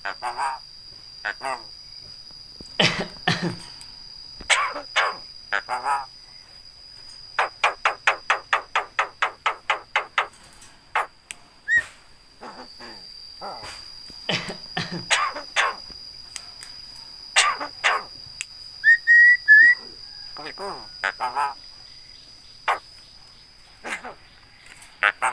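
Javan myna calling and chattering: scattered short harsh calls, a rapid rattle of about twenty clicks lasting some three seconds, and a short whistled phrase later on.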